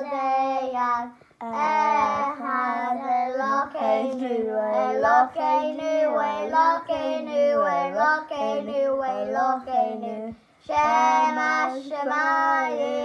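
Young children singing a Pesach song, in phrases broken by short breaths about a second in and again about ten seconds in.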